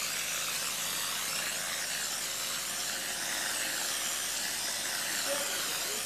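Steady hiss of a RimSpray GFRC Mini spray gun blowing a continuous spray of glass-fibre reinforced concrete into a mould.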